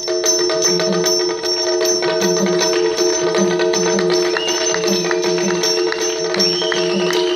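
Traditional Indian percussion accompaniment for a Yakshagana-style puppet show: a steady drone under regular drum strokes and ringing hand cymbals keeping a steady beat. A high piping note glides in and holds twice in the second half.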